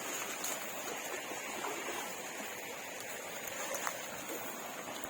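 Steady rushing of a creek's flowing water, with a few faint ticks.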